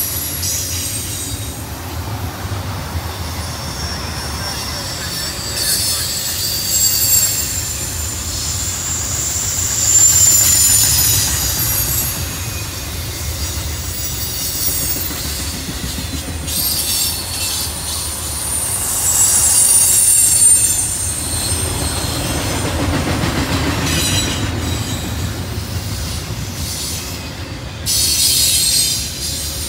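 A train rolling past on steel wheels with a steady low rumble, while wheel flanges squeal on and off in high, wavering tones that swell several times.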